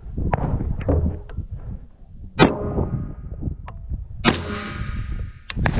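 Rifle shots at a practical rifle match, two about two seconds apart and another near the end. The first two are each followed by a steel target ringing with a clear tone for more than a second, a sign of a hit. Lighter clicks and knocks come before the first shot.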